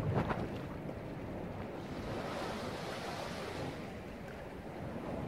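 Steady rushing outdoor noise. It has a brief louder burst at the very start, and a hiss that swells and fades again over about two seconds midway.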